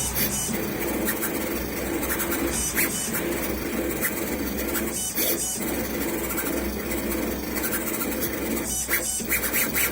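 Small CNC engraving machine running as it engraves a metal pet ID tag. Its motors whir in short stretches that stop and start, with frequent light clicks.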